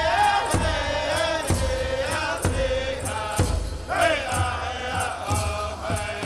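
Chanting voices with drawn-out, wavering notes over a low beat of about one thump a second.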